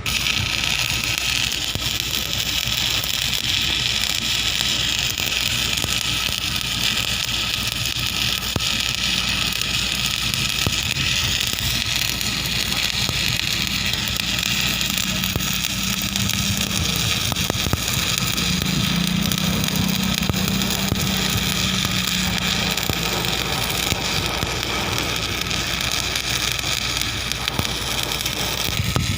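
Electric stick-welding arc crackling and sizzling steadily, with a steady hum underneath.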